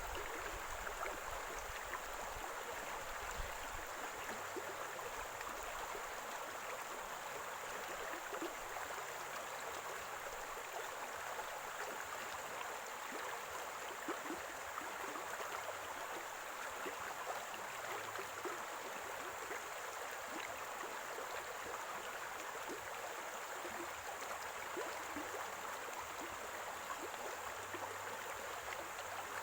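Stream water running steadily over stones, gurgling and bubbling.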